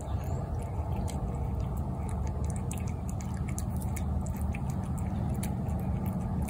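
Cat eating wet food from a plate: many quick, wet chewing and smacking clicks, over a steady low rumble.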